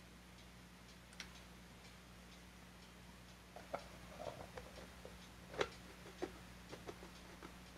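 Light plastic clicks and knocks of a clear plastic onion-saver dome being fitted and pressed down onto its base. They come as a cluster of small snaps from about three and a half seconds in, the sharpest about five and a half seconds in. Under them run a low steady hum and faint regular ticking.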